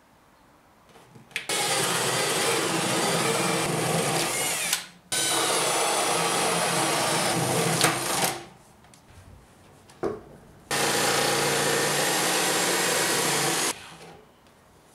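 Cordless drill boring through a wooden panel with a spade bit, running in three bursts of about three seconds each with short pauses between.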